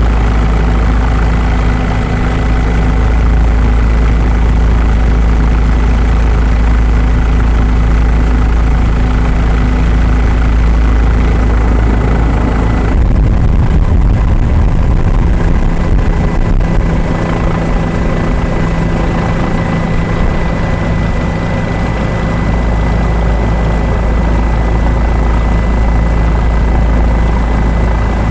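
A helicopter's engine and rotor running, heard loudly from on board as a steady drone with a few steady whining tones. About 13 seconds in, the high hiss drops away and the low rotor throb turns uneven for a few seconds, then evens out again.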